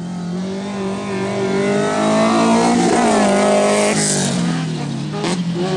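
Stock car engines running hard around a dirt track, pitch rising and falling as they rev, with one car passing close by near the middle.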